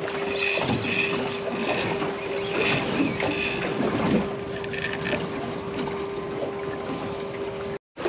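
Wind and water noise around a boat at sea, with a steady hum underneath; it cuts off abruptly near the end.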